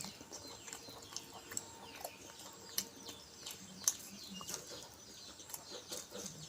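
Close-up eating sounds from a meal of rice and fish curry eaten by hand: scattered sharp clicks and smacks of chewing and handling the food, with birds chirping faintly in the background.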